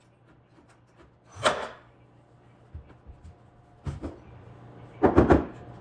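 Knocks and impacts on wood from renovation work: scattered light ticks, one sharp knock about four seconds in, then a rapid string of heavy hammer-like blows near the end.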